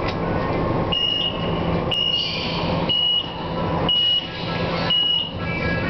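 Metro train's door-closing warning buzzer: a short high beep about once a second, five times, signalling that the doors are about to close, over the steady low hum of the stationary train.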